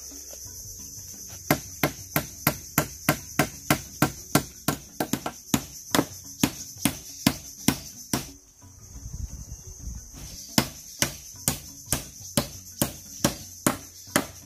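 Hammering: sharp blows at about three a second, in two runs with a pause of about two seconds near the middle. A steady high insect buzz runs underneath.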